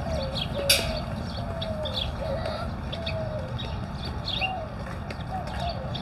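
A chorus of birds: a steady run of short, low cooing notes from doves, with scattered high chirps and tweets over them. One sharp click comes about two-thirds of a second in.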